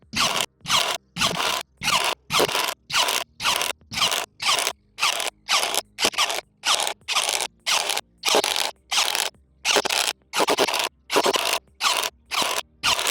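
Dagmara DTD173 cordless impact driver run in short trigger bursts, two to three a second, its hammer mechanism rattling in each burst.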